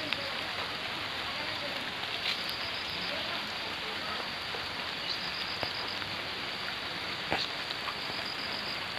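Steady, even hiss with a few faint ticks scattered through it.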